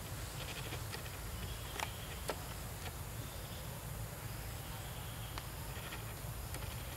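Outdoor ambience: a steady low rumble with faint high-pitched animal calls recurring every second or two, and a few sharp clicks.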